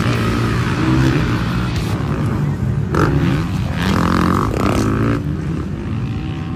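Motocross dirt bike engines revving, pitch rising and falling repeatedly as the bikes ride the track.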